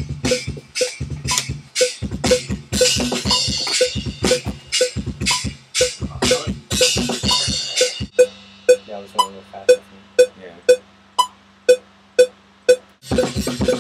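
Playback of a recorded metal drum-kit track over a metronome click: fast kick and snare strokes with cymbals. A little past halfway the drums drop out, leaving the even click, about two a second, and a steady low tone, and the drums come back in near the end.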